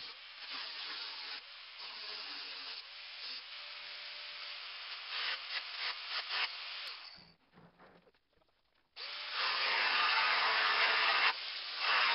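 Angle grinder grinding into the steel shell of a well-water pressure tank, its disc screeching against the metal with slight shifts in motor pitch. It stops about seven seconds in and starts again louder a second and a half later.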